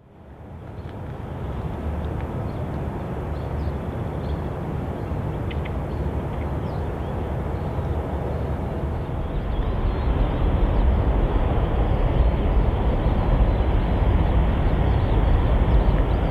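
Distant jet airliner rumbling, fading in from silence at the start and growing louder about ten seconds in, over steady outdoor background noise.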